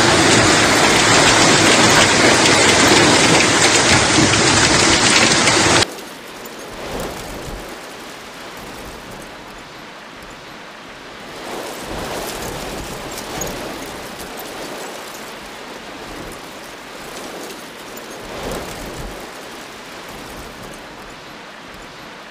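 Hailstorm with heavy rain: a loud, dense hiss of hail and rain pelting down, cutting off abruptly about six seconds in to a quieter steady hiss of falling rain and hail with a few louder swells.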